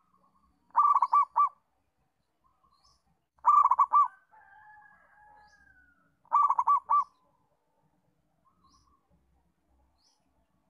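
Zebra dove (perkutut) cooing: three short phrases of quick, ringing coos, about four notes each, roughly three seconds apart. Faint chirps of other small birds between the phrases.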